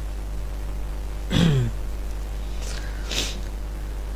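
A pause in a man's talk: one brief vocal sound with falling pitch about a second and a half in, then two short breathy hisses. A steady low electrical hum runs underneath.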